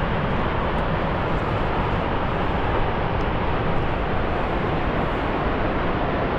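Waterfall, the Lower Falls of the Yellowstone River, rushing with a steady, unbroken roar of falling water.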